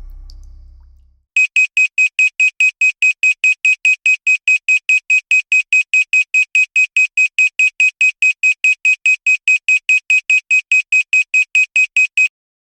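Countdown timer's electronic alarm going off: a fast, even, high-pitched beeping at about four beeps a second that signals the countdown has reached zero, stopping suddenly near the end. Before it starts, a low ambient drone fades out.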